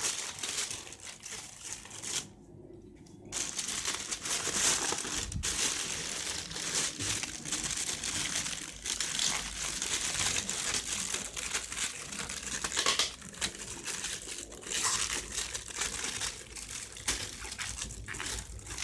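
Packaging crinkling and rustling as a boxed speaker unit is handled and unwrapped, with a short pause about two seconds in.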